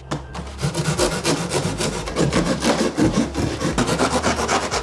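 Large cardboard shipping box being pulled up off an e-bike, the cardboard rubbing and scraping in a rapid run of rough strokes.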